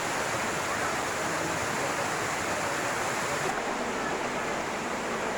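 A waterfall's water rushing in a steady, even roar of noise; the topmost hiss drops away sharply about three and a half seconds in.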